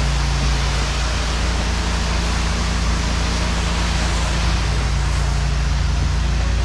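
Pressure washer running steadily: a constant hiss of water spray over a low, even engine drone.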